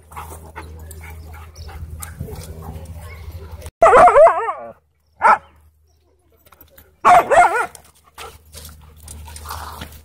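Dogs barking and howling in play: a loud call with wavering pitch about four seconds in, a short bark just after, and another wavering call near seven seconds.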